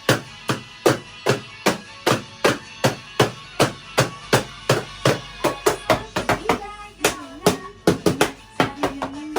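Background music with a steady percussive beat of about two and a half hits a second and a short melody line over it.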